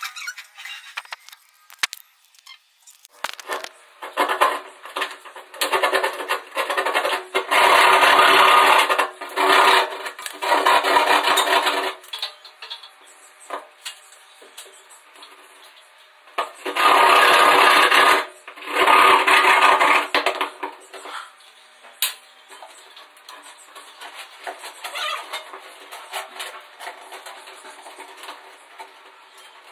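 Gypsum board ceiling being cut by hand, in several loud, scratchy bursts of a second or two each, with quieter handling sounds between them.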